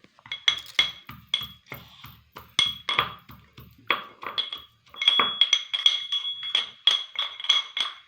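A metal utensil striking a steel vessel again and again, each hit a ringing clink. The strikes are uneven at first and settle into a quicker, steady beat of about three or four a second from about halfway through.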